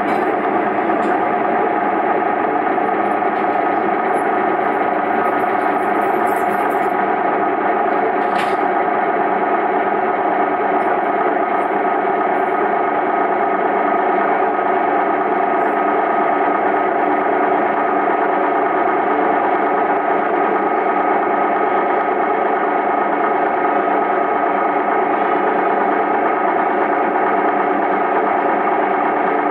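Diesel railcar idling while standing at a station, heard from inside the car as a steady hum with many held tones. One sharp click about eight and a half seconds in.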